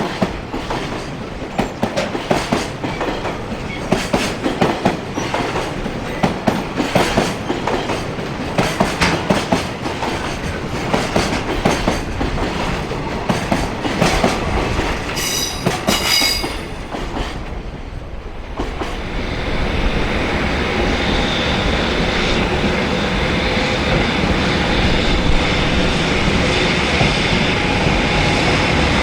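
A JR Freight container train rolling past, its wagon wheels clattering over rail joints, with a brief high wheel squeal a little past the middle. The clatter fades out about two-thirds of the way through. Then a steadier, louder rumble with held tones builds as the next train comes in.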